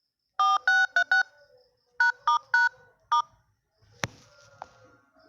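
Smartphone dial pad sounding touch-tone (DTMF) beeps as its keys are tapped: eight short beeps in two quick groups of about four. Near the end come a sharp click and a fainter second click.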